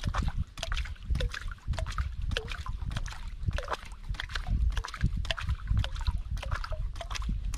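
Water lapping and sloshing against a small outrigger boat's hull, with irregular small splashes and drips, over a steady low rumble.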